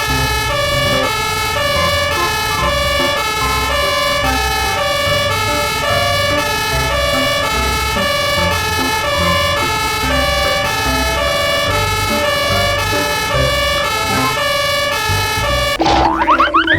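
Police car siren sounding a two-tone hi-lo pattern, stepping back and forth between two pitches. Near the end a short sweeping effect cuts in.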